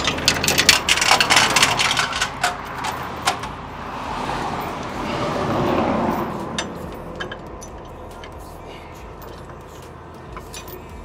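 Steel tow chains clanking and rattling against a wrecker's wheel-lift, a quick run of metallic clinks over the first few seconds. A rush of noise then swells and fades, followed by a few faint clinks.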